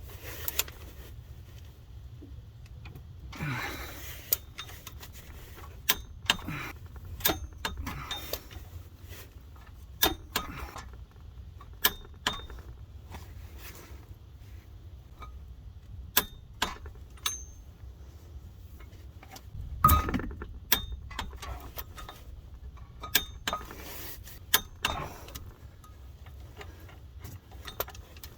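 Click-type torque wrench working bolts up to 65 in stages: sharp, irregular metallic clicks of the ratchet and the wrench's torque-setting click, with a heavier metal knock about two-thirds of the way through.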